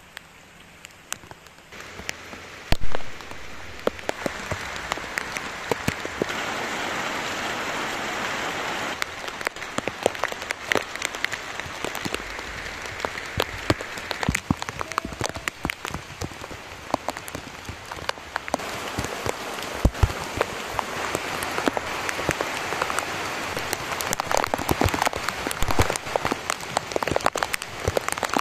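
Heavy tropical rain falling steadily, a dense hiss full of sharp individual drops and drips landing close by. A single loud thump about three seconds in.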